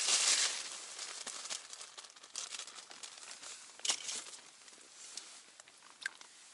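A plastic bag rustled by hand, loudest at the start, then fainter crinkling with a few sharp clicks.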